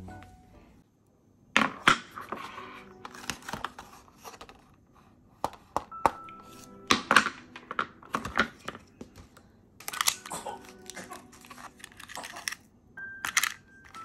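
Plastic freezer tray of frozen rice porridge being handled, its lid taken off and the frozen cubes pushed out: a run of sharp plastic clicks and crackles that starts about a second and a half in. Soft background music plays under it.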